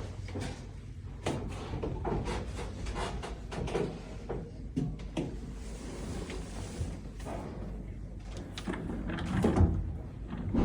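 Irregular clicks, knocks and rustling of objects being handled, with a louder cluster of knocks near the end.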